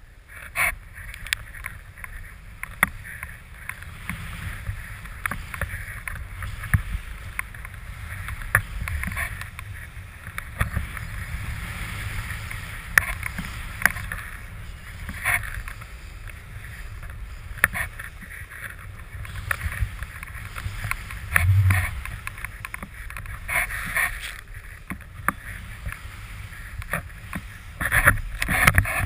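Snowboard carving through deep powder snow: a steady rush and hiss of sprayed snow, with many short knocks and bumps and a low wind buffeting on the microphone.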